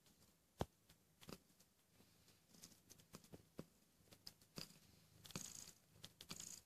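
Mother cat licking her nursing newborn kittens: scattered soft clicks and wet rasping licks that grow denser over the last couple of seconds, over a faint purr.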